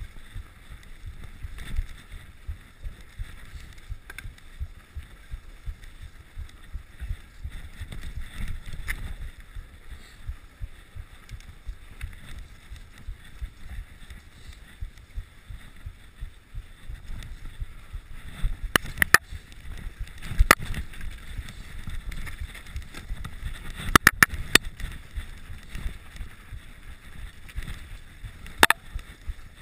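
Mountain bike ridden over a snowy trail: a steady low rumble of the tyres on snow and wind on the microphone, with a handful of sharp clacks from the bike rattling over bumps in the second half.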